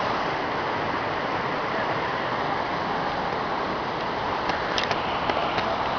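Steady rush of river water pouring over a waterfall and rapids, with a few faint clicks near the end.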